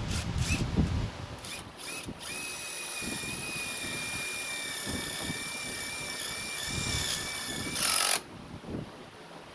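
Electric drill enlarging the hole in a battery terminal fitting: a few short trigger blips, then a steady high whine for about five seconds. A brief, loud rushing burst follows near the end.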